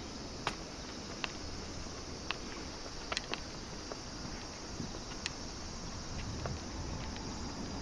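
A person walking on a paved path, with sharp, irregular clicks and taps every second or so over a steady low outdoor background noise.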